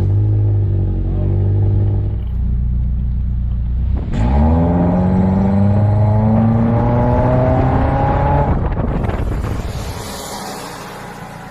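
Car engine running steadily, then from about four seconds in accelerating with a slowly rising pitch, and dying down over the last couple of seconds.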